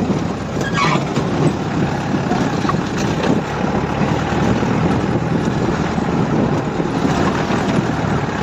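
Jeep engine running as the vehicle drives along a rough dirt track: a loud, steady drone of engine and road noise.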